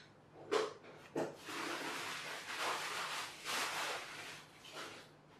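Cardboard jigsaw puzzle pieces handled on a cloth-covered table: two light taps in the first second, then a couple of seconds of rustling and sliding as pieces are moved and picked up, and one fainter tap near the end.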